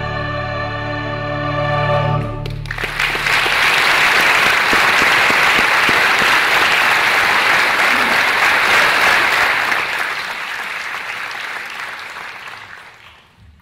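Mixed choir with violins and cello holding a chord, which stops about two and a half seconds in; audience applause then breaks out, runs steadily and fades away near the end.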